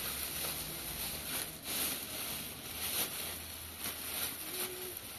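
Soft rustling of a plastic bag and toys being handled, with a few light crinkles over a steady low hum.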